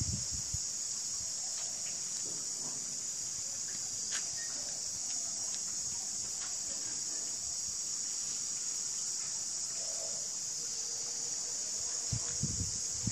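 A steady, high-pitched drone from a chorus of insects, with a few low thumps near the end.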